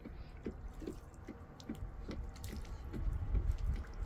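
Water dripping steadily into water, about two to three drops a second, each drop a short plink, over a low rumble that grows louder near the end.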